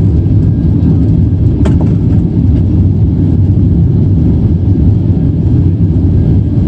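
Jet airliner's engines heard from inside the cabin as the plane rolls along the runway: a loud, steady low rumble.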